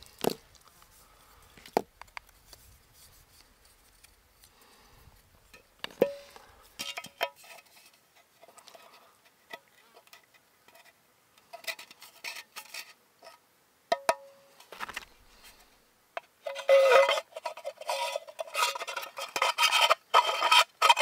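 Knife whittling a thin wooden twig down to size: a few scattered clicks and light scrapes, then quick, dense shaving strokes in the last four or five seconds.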